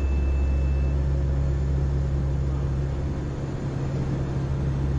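Four-turboprop engines and propellers of a NOAA WP-3D Orion droning steadily in the cockpit, with a thin high steady tone during the first second and a slight dip in level a little past halfway.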